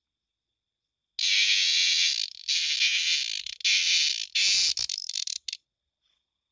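An animal's loud, harsh buzzing call in several bursts over about four seconds, broken by short gaps and a few flickering stops near the end.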